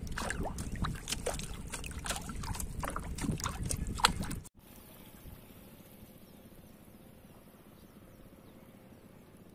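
Plastic bottle being held under shallow water, gurgling and glugging as air bubbles out of its mouth while it fills. The gurgling cuts off suddenly about four and a half seconds in, leaving only a faint steady hiss.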